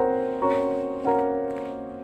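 Background music: soft piano-like keyboard notes, each struck and left to fade, with a new note about half a second in and another about a second in.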